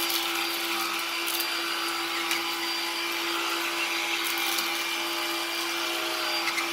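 BLACK+DECKER 20V Max lithium 2-in-1 cordless stick vacuum running on its low power setting with the brush roll on: a steady motor hum over a high airflow hiss, with a few brief clicks as it picks up debris from the floor.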